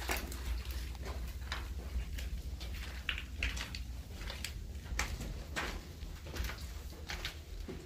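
Footsteps crunching on grit and broken debris on concrete steps and floor, roughly one or two steps a second, over a steady low rumble.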